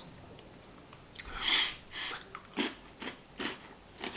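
Potato chips (Calbee truffle flavour) being bitten and chewed: a crunchy bite about a second and a half in, followed by a run of short crisp crunches as they are chewed.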